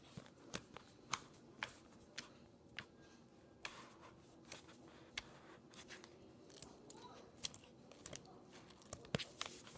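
Cloud slime being kneaded and stretched by hand, giving off irregular sharp crackles and pops that come thicker near the end.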